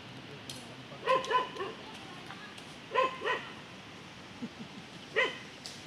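A dog barking in short runs of two or three sharp barks, about every two seconds, three times.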